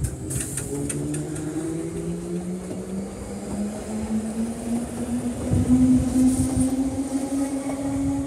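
London Underground 1972 Stock train accelerating away from the platform: its motor whine climbs steadily in pitch, with a few sharp clicks from the wheels in the first second and a cluster of low thuds about two thirds of the way through.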